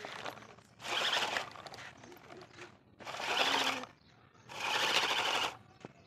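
Plastic toy tractor and loaded toy trailer rattling and scraping over gritty dirt in three bursts of about a second each.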